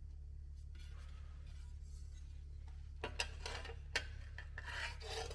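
Steady low hum, then from about three seconds in, light metallic clinks and scrapes of metal being handled, with a couple of sharper knocks.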